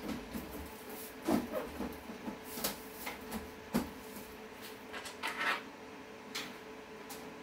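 A PC tower case being handled: scattered knocks and clicks as hands grip and shift it on the table, with a short scraping rub about five seconds in.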